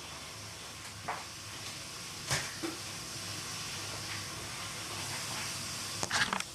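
Effervescent Emergen-C vitamin C powder fizzing as it dissolves in a drink: a steady hiss, with a few light clicks of the container.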